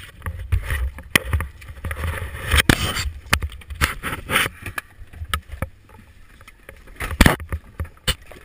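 Handling noise from a GoPro being moved around inside a car: repeated bumps, rubs and knocks over a low rumble, with one louder knock about seven seconds in.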